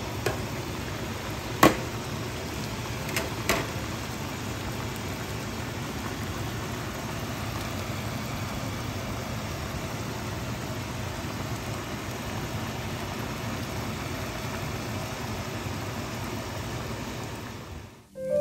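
Steady hiss of a pot of beef oxtail adobo simmering on the stove, with a few sharp clicks in the first few seconds, the loudest about two seconds in.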